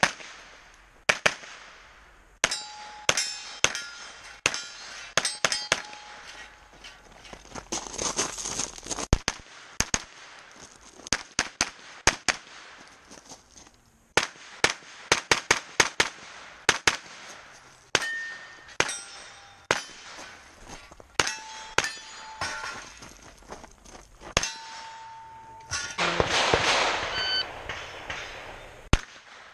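Pistol-caliber carbine shots fired in quick irregular strings. Several are followed by the short ringing clang of steel targets being hit.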